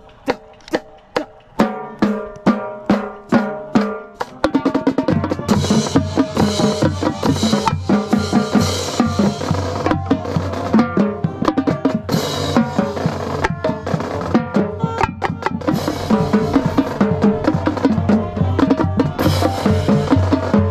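Marching tenor drums (a five-drum quint set) played with sticks: separate tuned strokes at first, then the full marching band comes in about four seconds in, with a steady low bass line, fast drumming and several crashes.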